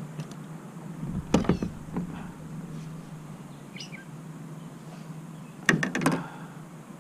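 Knocks and clatter of handling against the hard plastic hull of a fishing kayak while a small bass is dealt with: a short burst about a second and a half in, and a longer cluster of several knocks near the end. A bird chirps faintly once in between.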